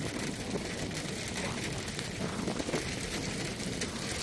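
Rain falling in a steady hiss, with many small ticks of drops hitting close to the microphone.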